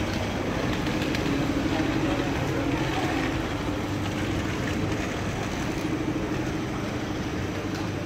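City street ambience: traffic running steadily with a constant engine hum, and faint voices of passers-by.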